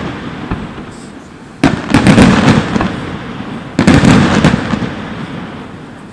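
Aerial fireworks shells bursting: a sharp bang about one and a half seconds in and another about two seconds later, each followed by crackling and a rumble that slowly dies away.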